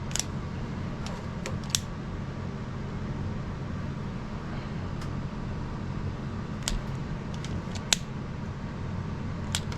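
Steady low hum of a fan, with scattered light clicks and taps from small parts and tools being handled at the workbench.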